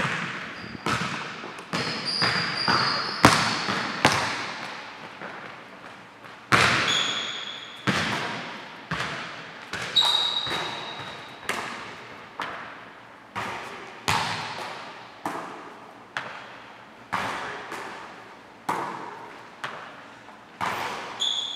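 Basketball shooting drill on a hardwood court: the ball thuds on the floor and off the rim about once a second, each hit echoing through the gym, with short sneaker squeaks now and then.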